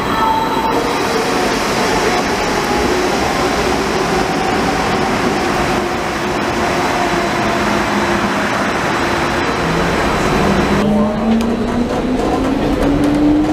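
Danhai light rail tram passing close along the platform: steady rolling noise of wheels on rail, with faint motor tones sinking in pitch. About eleven seconds in, heard from inside the car, the electric traction motors whine, rising steadily in pitch as the tram accelerates.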